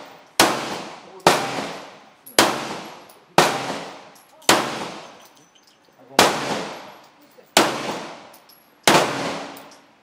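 Pistol shots fired one at a time, eight in all, roughly a second apart with the gaps lengthening toward the end; each crack trails off in a long echo.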